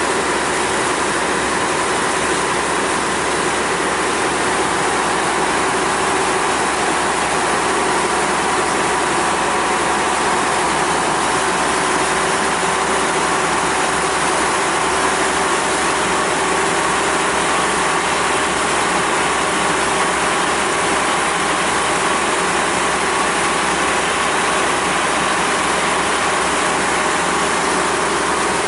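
The ferry's engine running steadily while under way, a constant drone with faint steady tones, mixed with the wash of water churned up in its wake.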